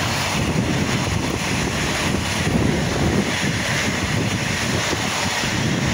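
Long Island Rail Road M9 electric multiple-unit train passing at speed: a steady rush of wheels on rail and car bodies going by, with wind buffeting the microphone.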